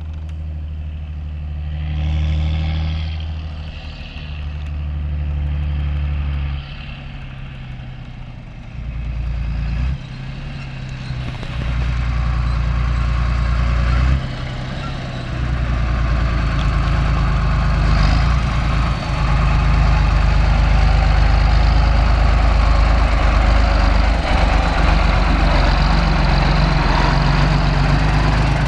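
John Deere 8120 tractor's six-cylinder diesel engine running steadily while pulling a large square baler, growing louder as the tractor comes close.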